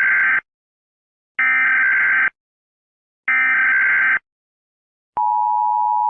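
Emergency Alert System header: short bursts of SAME digital data tones, three in all and about two seconds apart. About five seconds in, the steady two-tone EAS attention signal begins.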